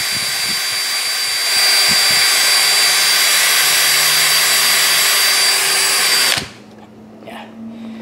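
Cordless drill spinning a bolt wrapped in Scotch-Brite pad inside an alloy wheel's lug bolt hole, scuffing the metal before paint. A steady whine that grows a little louder about a second and a half in, then cuts off suddenly about six seconds in.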